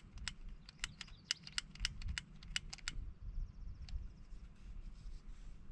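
Thermacell butane mosquito repeller's igniter clicked over and over, about fifteen sharp, irregular clicks in three seconds, followed by a brief faint hiss and one last click.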